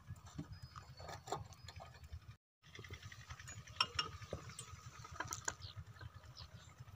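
Metallic clicks and clanks from the starting handle of a small 8 hp diesel water-pump engine as it is hand-cranked for starting, over a low rumble.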